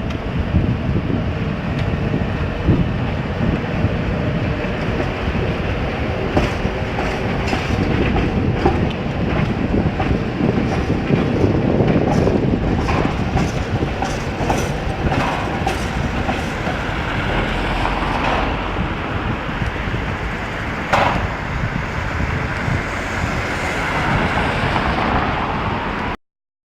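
Ganz UV tram running along its track: a steady rumble of wheels and running gear, with a run of clicks over the rails in the middle and one short sharp sound about three-quarters through. The sound cuts off abruptly just before the end.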